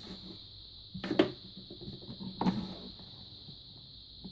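Hands handling and taping TV parts: short knocks and rustles about a second in and again midway, over a steady faint high-pitched whine.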